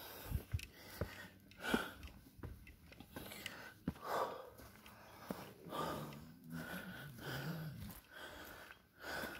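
Heavy breathing of a person walking uphill, a loud breath about every two seconds, with footsteps on a dirt path.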